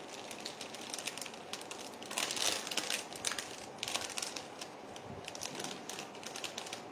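Packaging crinkling and rustling as hands handle jewellery pieces, with dense little crackles that grow loudest about two to three seconds in.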